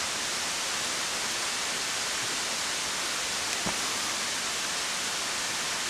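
Steady, even hiss with no change in level, and one faint click about three and a half seconds in.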